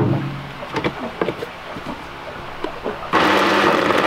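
Small clinks and knocks as ice goes into a countertop blender jug and the lid goes on. About three seconds in, the blender motor starts abruptly and runs loud and steady, blending ice into a thick coconut-banana smoothie.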